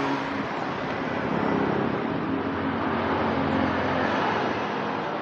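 Steady road traffic noise from vehicles passing on a busy road.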